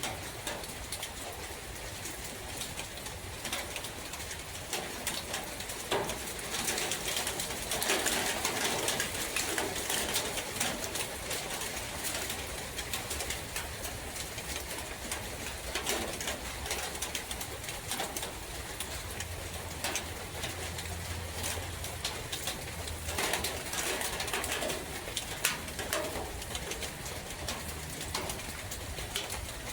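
Steady rain pattering and dripping in a forest, with a dove cooing over it.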